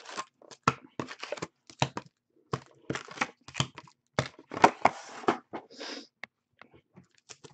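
Foil card packs crinkling and rustling as they are lifted out of the box by the handful and set down in stacks on a wooden table, with irregular crackles and soft taps.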